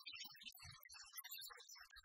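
Faint background music, barely above near silence.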